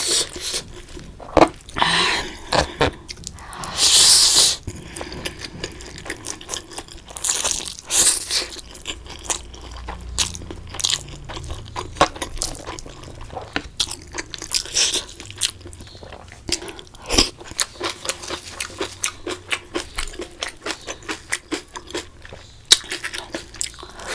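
Close-miked eating: steady crunching and chewing with many sharp clicks, and a few brief, louder hissing sounds, the loudest about four seconds in.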